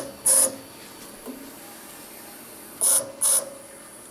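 Stepper motor driving the lathe's Z-axis ball screw in short jog moves, each a brief whine: one near the start, then two in quick succession about three seconds in. The stepper motors are not yet tuned, and at this stretch of travel the axis seems to skip, which the owner thinks may be binding.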